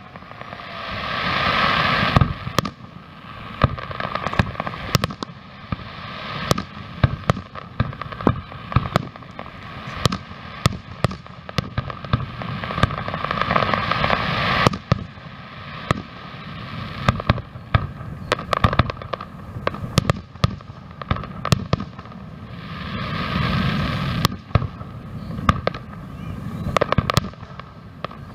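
Aerial fireworks display: a rapid, irregular run of shell bursts and sharp bangs with crackling. It thickens into denser, louder stretches near the start, about halfway through and near the end.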